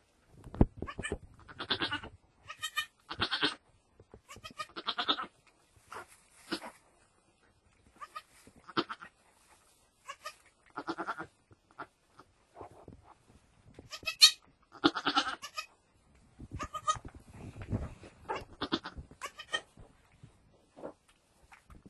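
Goats bleating in short calls, again and again: a doe with her newborn kid in the straw just after the birth.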